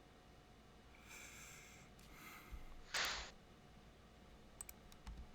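A person breathes out sharply once, about three seconds in, after softer breaths. A few faint clicks come near the end.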